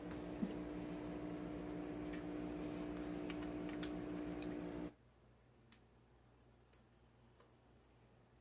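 Steady electric hum of aquarium equipment, such as the air pump running the sponge filters, with a few faint clicks; it cuts off suddenly about five seconds in, leaving faint room tone.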